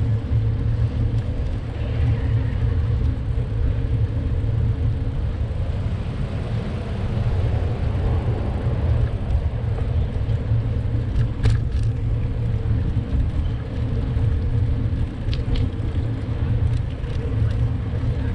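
Steady low rumble of car traffic and road noise heard from a moving bicycle. There is a sharp click about eleven and a half seconds in and a few fainter ticks around fifteen seconds.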